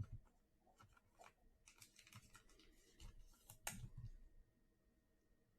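Faint clicks and light rustling of hands handling trading cards, with one sharper click about three and a half seconds in, then near silence.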